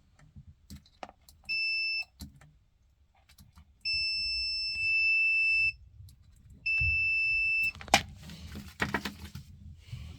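Digital multimeter on continuity test beeping three times with a steady high tone: a short beep, a long one and a medium one. The beep is the sign that the fuse under test conducts. A few sharp clicks of probes and handling follow near the end.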